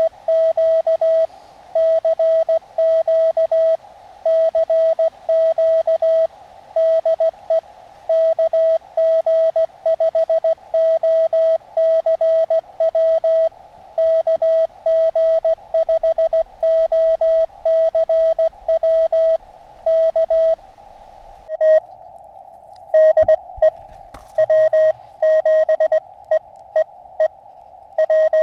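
Morse code (CW) from an Elecraft KX2 transceiver: a single steady tone keyed in dots and dashes over a narrow band of filtered receiver hiss. The keying stops for about two seconds a little over 20 seconds in, leaving only the hiss, then starts again.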